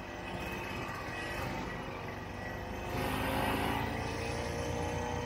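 Vintage Ski-Doo Olympic snowmobile's two-stroke engine running as the sled travels through snow, getting louder about three seconds in.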